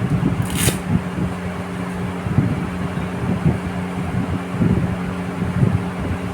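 Steady electric fan hum under rustling and soft thumps as batting gloves are handled and pulled on, with one brief rasp about half a second in.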